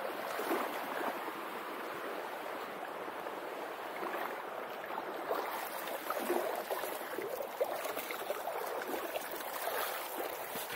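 Shallow stream babbling steadily over pebbles, with small gurgles and splashes here and there.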